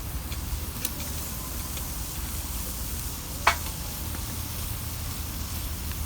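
Wood fire burning in a fire pit, hissing steadily with a few sharp crackling pops; the loudest pop comes about three and a half seconds in.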